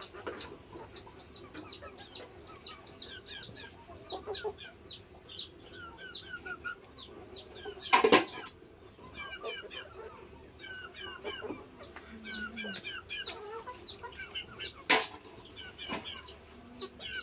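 Chickens chirping: a steady run of short high calls that fall in pitch, several a second. Two sharp knocks stand out, the louder about halfway through and another near the end.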